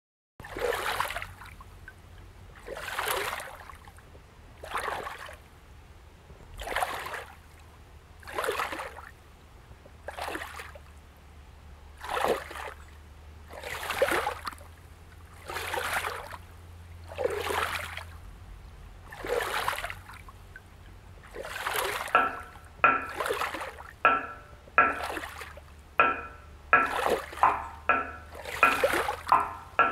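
River water splashing and sloshing in regular surges about every two seconds. From about twenty-two seconds in, the splashes come quicker and sharper, with a faint ringing tone in them.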